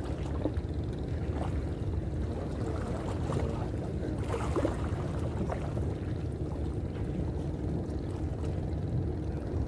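Steady low rumble of harbour-shore ambience, with a few faint, brief distant voices.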